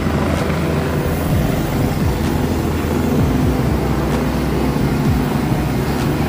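Steady low mechanical rumble, its low end fluctuating.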